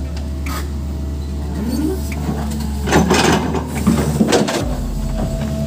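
Crawler excavator's diesel engine running with a steady drone, with two bursts of clattering and scraping about three and four and a half seconds in as the machine works.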